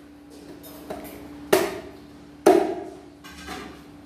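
Meat cleaver chopping through a boiled duck on a cutting board: a light knock, then two heavy chops about a second apart.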